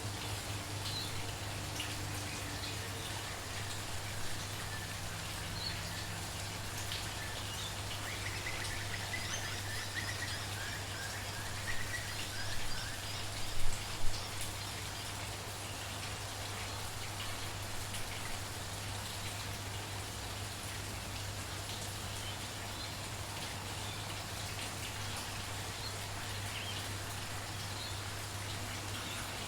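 Steady light rain pattering, with birds chirping now and then, most around the middle, and a steady low hum underneath.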